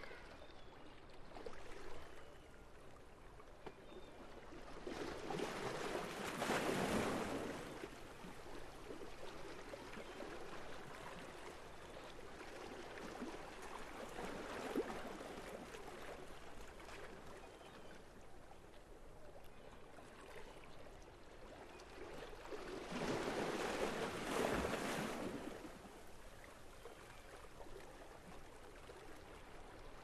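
Seawater lapping against a waterfront edge in a steady wash, swelling twice into a louder splash of a wave for a few seconds each.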